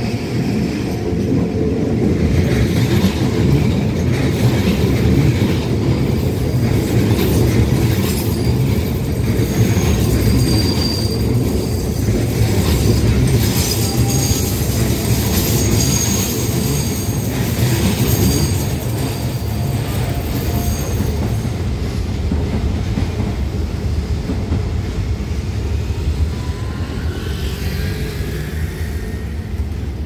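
Shin-Keisei 8800 series electric commuter train passing on a curve: a steady, loud rumble of wheels on rails, with high wheel squeal from about ten to twenty seconds in.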